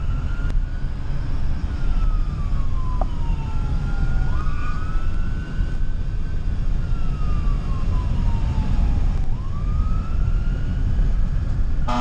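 Fire engine siren on a slow wail, its pitch rising quickly then falling away in a long glide, repeating about every four seconds. Underneath is the steady low rumble of the engine and road noise heard from inside the cab.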